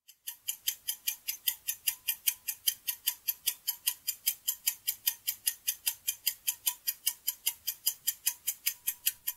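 Ticking-clock sound effect of a quiz countdown timer: fast, perfectly even ticks that mark the seconds running out before the answer is revealed.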